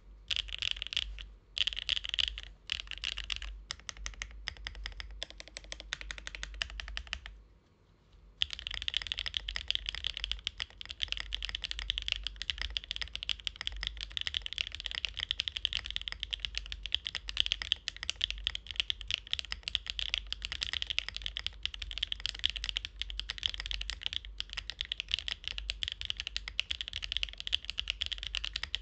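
Mechanical keyboard fitted with pre-lubed Arco x HMS switches being typed on: short bursts of keystrokes at first, a brief pause about eight seconds in, then steady fast typing.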